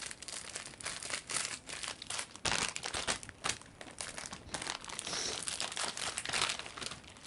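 Plastic packaging crinkling and rustling as it is handled, in irregular bursts that are loudest about two and a half to three and a half seconds in.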